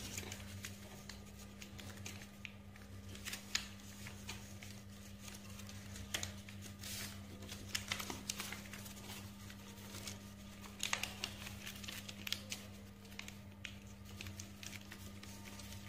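A sheet of paper being folded and its creases pressed flat by hand on a tabletop: faint, scattered rustles and soft taps, over a steady low hum.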